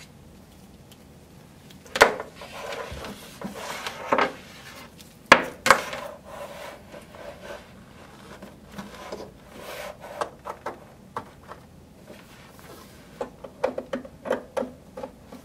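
MIDI cables being handled and plugged into the back panel of a keyboard stack: sharp knocks and clicks of the plug ends against the panel, with rubbing of the cable coil. There are loud knocks about two, four and five seconds in, and a quick run of small clicks near the end.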